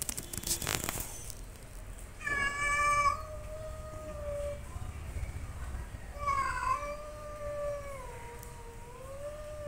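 Angry cats yowling at each other in a territorial standoff: two long, drawn-out wails. The first comes about two seconds in; the second starts about six seconds in, wavers down and back up in pitch, and drops away at the end.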